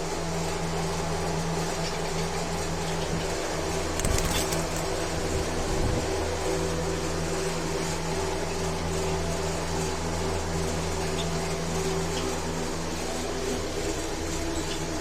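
Steady mechanical hum with a constant hiss, with a brief louder low rumble about four seconds in.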